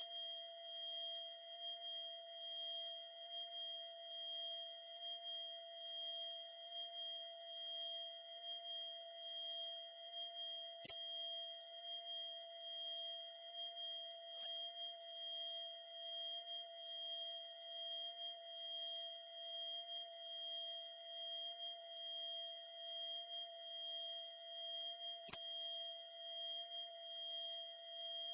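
High-pitched anti-dog whistle tone, a shrill steady sound made of several high pitches at once, held without a break or change.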